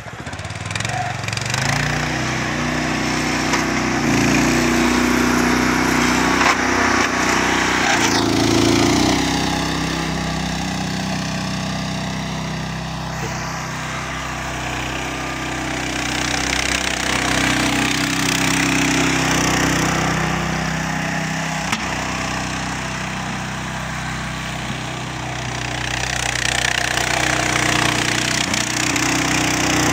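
Small engine of a homemade articulated mini tractor running under load as it pushes snow with its angled blade, its pitch and level rising and falling as it works.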